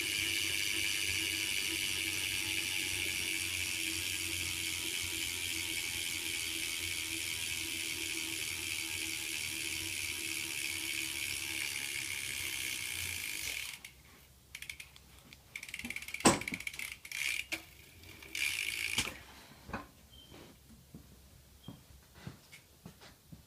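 2012 Verde Eon BMX rear hub buzzing steadily as the spun wheel freewheels, its pawl clicks running together, easing slightly in pitch as it slows. It cuts off suddenly about 14 seconds in, followed by a few scattered knocks and clicks, the loudest a sharp click about two seconds later.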